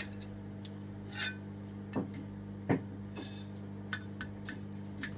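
A few scattered light clicks and clinks of cutlery against plates over a steady low hum.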